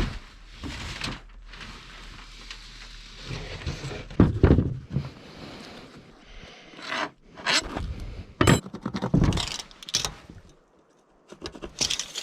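Irregular scraping and knocking from tools and materials being handled, with several sharp knocks between about 4 and 10 seconds in and a brief lull near the end.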